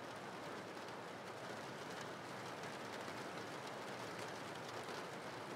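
Steady rain: an even hiss of falling rain that holds level throughout.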